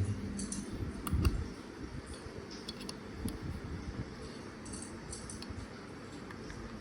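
Light clicks and metallic clinks of small parts being handled and fitted together while assembling a Hi-Capa airsoft pistol, with a louder knock about a second in.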